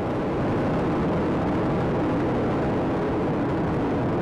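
Space Shuttle Atlantis's solid rocket boosters and three main engines firing during ascent: a steady, low rumble of rocket noise.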